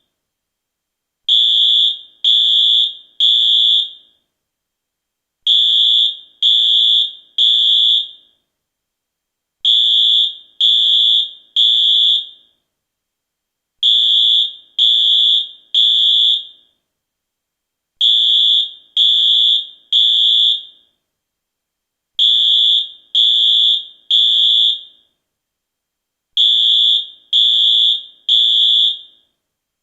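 US fire alarm sounding the temporal-three evacuation signal: three high-pitched beeps about half a second each, then a pause of about a second and a half, the group repeating about every four seconds.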